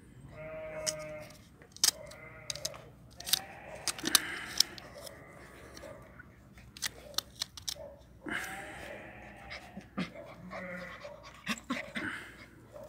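Young puppy giving high-pitched yaps and growls in repeated bursts as it bites at a wooden stick, with sharp clicks and knocks in between.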